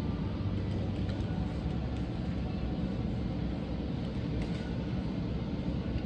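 Steady low rumble of background room noise, with a couple of faint clicks about a second in and again past the middle.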